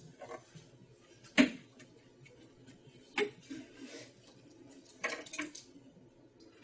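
A few scattered sharp knocks and clicks in a quiet room, the loudest about a second and a half in, another about three seconds in, and a short cluster near the end.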